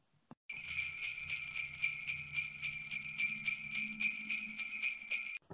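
Sleigh bells jingling in a steady rhythm over a low held tone, a short edited-in Christmas music transition. It starts about half a second in and cuts off suddenly near the end.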